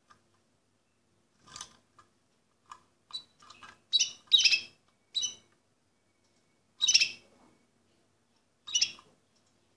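Orpheus canary giving short scattered chirps: a dozen or so brief high calls with silent gaps between them, the loudest about four, seven and nine seconds in.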